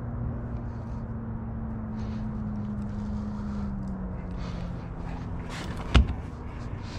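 Steady low hum of a vehicle engine running, its pitch sagging slightly about four seconds in, under light handling noise. A single sharp knock about six seconds in.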